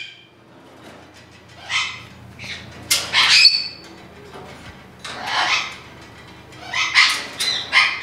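Parrot squawking in short, harsh calls a second or two apart, one of them ending in a brief whistle-like note.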